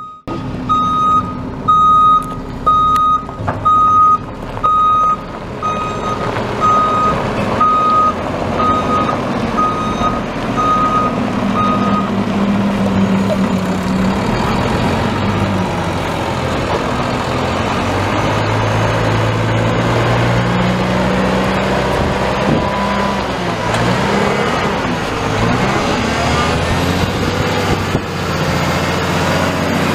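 Mack front-loader garbage truck's reverse alarm beeping loudly about once a second as it backs up, stopping about twelve seconds in. After that the truck's diesel engine is heard revving up and down as it pulls forward.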